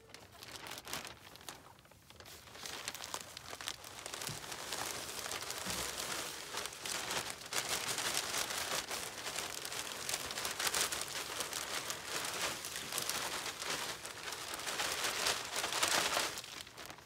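A plastic bag of wood shavings crinkling and rustling as the shavings are poured out into a chicken nesting box. It is a dense crackle that builds after the first couple of seconds and is loudest near the end.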